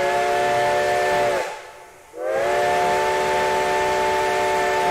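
Reading 4-8-4 No. 2102's six-chime steam whistle blown in two long blasts, each sliding up into a chord of several notes. The first blast cuts off about a second and a half in, and the second starts about two seconds in and holds steady.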